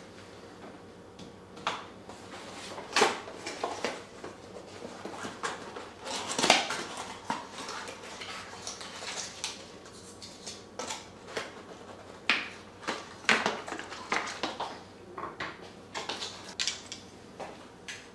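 Irregular clinks and clatters of hard objects being handled, the loudest about three and six and a half seconds in.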